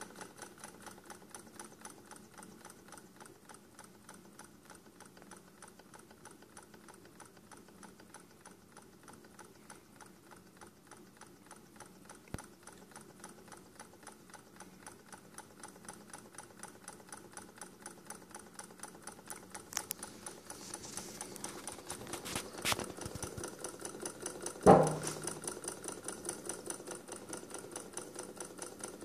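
Small homemade Stirling hot air engine running after its flywheel is spun by hand, its piston and linkage ticking in a fast, even rhythm that grows slightly louder. A single loud knock comes near the end.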